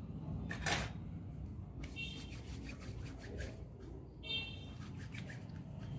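Fingers rubbing moisturizing lotion into facial skin: soft rubbing strokes, with a sharp tap a little under a second in. A short high chirp-like tone sounds about two seconds in and again just after four seconds.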